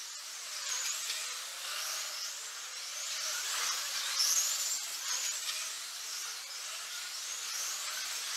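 Electric motors of 1/24-scale slot cars whining at high speed, rising and falling in pitch with repeated rising sweeps every second or so as the cars race around the track.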